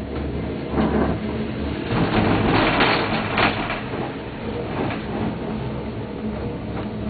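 Leitner six-seat gondola cabin running along its cable with a steady mechanical hum, broken by several louder rattling noises, the loudest between about two and three and a half seconds in.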